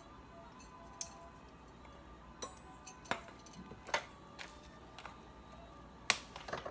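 Scattered light clicks and taps from a plastic seasoning-salt shaker being shaken over a mixing bowl and handled, about seven in all and spaced irregularly, the sharpest about six seconds in.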